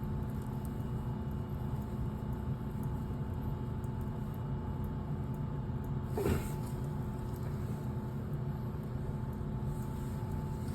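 Furnace running with a steady low mechanical hum, and a single brief clunk about six seconds in.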